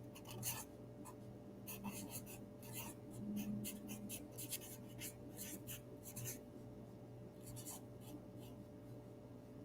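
Faint, irregular scratching and rustling of paper being handled or rubbed, a few short strokes a second with brief pauses.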